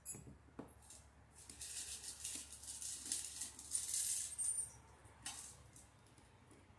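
Small metal hardware clinking and rattling as it is handled and fitted by hand, with a few sharp clicks near the start and another near the end.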